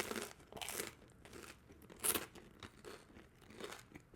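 A person chewing and crunching toasted bread, close to the microphone, with irregular crisp crunches, the loudest about two seconds in.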